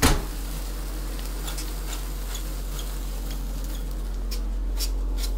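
Sparklers burning with a steady fizzing hiss and scattered small crackles, after a sharp crack at the very start.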